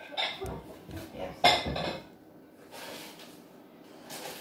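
Dishes and cutlery clinking and clattering, with a louder clatter about a second and a half in, then quieter.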